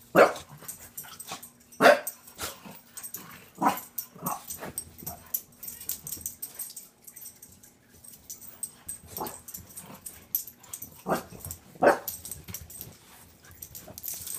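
French bulldog giving short barks and growls while play-fighting with a cat, a string of sharp bursts a second or two apart with a lull midway.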